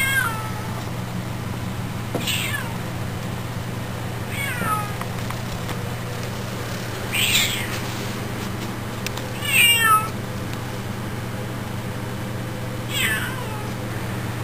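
Siamese kitten meowing while stalking a housefly: six short, high cries, each falling in pitch, every two to three seconds, the loudest two in the middle. A steady low hum runs underneath.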